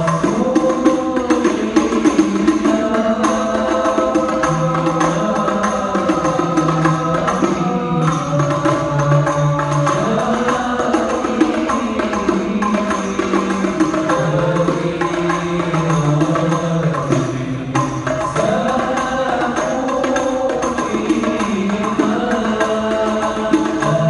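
A group of men singing a devotional chant together into microphones, amplified, over a steady beat of hand-struck frame drums. The melody moves in long held notes that rise and fall.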